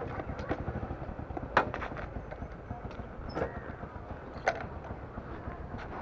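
Outdoor ambience with a steady low rumble and footsteps on a dirt path, including a string of small clicks and crunches. Two sharp clicks stand out, about one and a half and four and a half seconds in.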